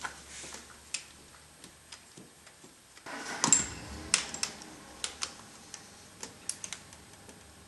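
A wrench working a 10 mm bolt tight: irregular sharp metallic clicks and ticks, with a short scraping rustle about three seconds in.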